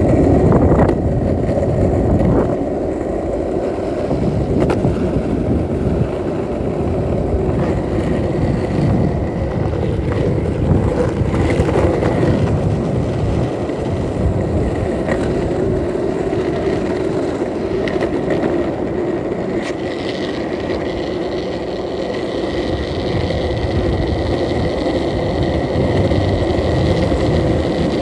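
Skateboard wheels rolling steadily over asphalt, a continuous rumbling roar with a thin steady whine above it and a few sharp clicks from bumps in the road surface.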